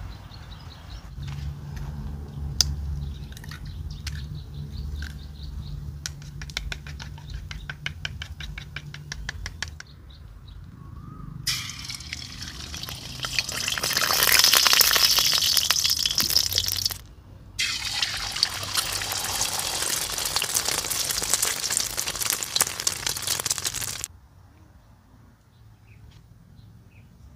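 Egg poured into hot oil in a wok, sizzling loudly for about twelve seconds, broken by a brief gap partway, then stopping abruptly. Before it there is a low hum with quick clicks.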